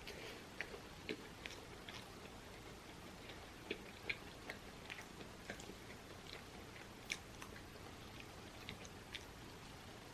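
Close-miked person chewing food with the mouth: soft, irregular wet clicks and smacks, a few sharper ones around four seconds and seven seconds in.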